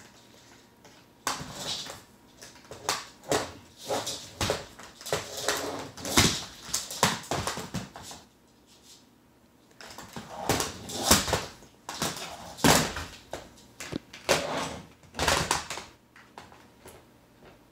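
Blue-and-gold macaw working at a plastic Super Soaker water gun with its beak: irregular knocks, clicks and scrapes of beak on hollow plastic, with the toy shifting on a tile floor. The noises come in two spells, with a lull about eight seconds in.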